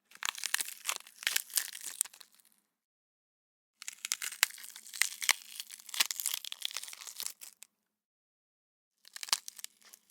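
Foley crunching and snapping for bone-breaking gore effects: three bursts of dense, wet-sounding crackles and sharp snaps, the middle one the longest, separated by dead silence.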